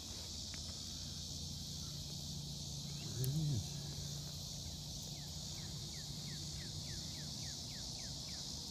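Steady high-pitched chorus of insects over a low hum. About three seconds in there is a brief voice sound rising and falling in pitch, and in the second half a run of quick descending chirps.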